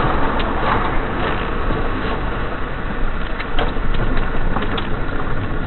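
Steady engine and road rumble inside a moving car's cabin, with a few faint clicks.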